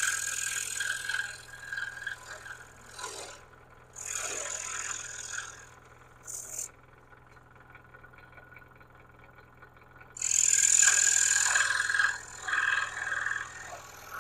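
Scroll saw cutting wood in short bursts, with a longer, louder cut about ten seconds in. A steady low hum runs underneath.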